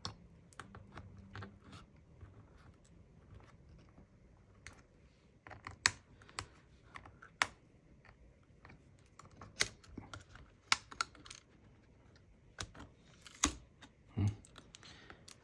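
Irregular small clicks and taps, a few sharper than the rest, as a plastic spudger pries and scrapes along the inside edge of an opened MacBook Air, working loose a bracket that seems to be held by adhesive.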